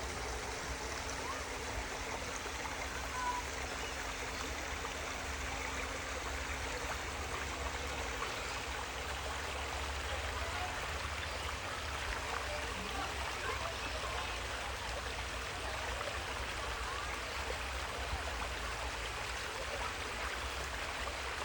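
Steady rush of running water, an even splashing trickle like a small stream or cascade that keeps on without change, under a low rumble.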